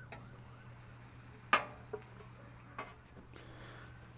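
Food sizzling faintly on a steel flat-top griddle under a low steady hum. About a second and a half in comes one sharp metal clank, with two lighter taps soon after, as metal spatulas and a stainless steaming dome are handled on the griddle.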